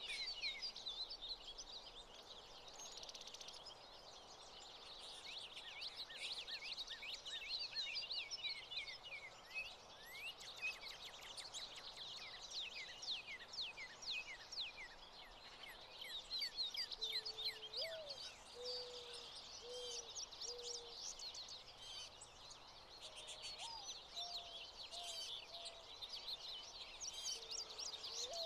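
American goldfinches twittering: a continuous run of quick high chirps and trills. In the second half a low call of four notes, the first rising, comes twice.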